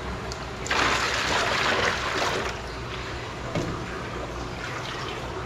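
Water being poured and splashing into a container of water for about two seconds, starting about a second in, then a quieter running trickle. The water is being added to the fish's container so the fish can get used to the aquarium water.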